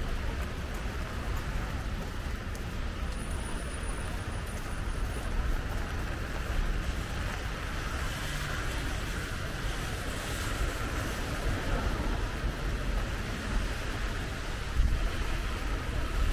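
Steady hiss of rain mixed with traffic noise, car tyres swishing on a wet road.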